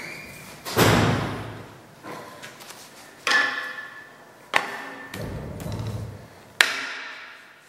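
Hammer blows on a cold-bent steel hook clamped in a bench vise, tapping it straight: four separate knocks a second or more apart, each dying away, some leaving a short metallic ring.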